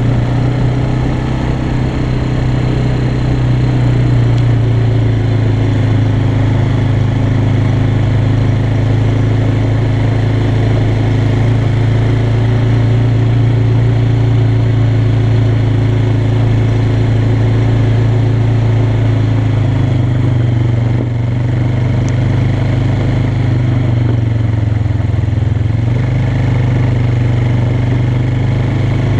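Yamaha Bear Tracker 250 quad's air-cooled single-cylinder four-stroke engine running steadily under way on a gravel track. The engine note shifts a little lower after about twenty seconds and comes back up a few seconds later.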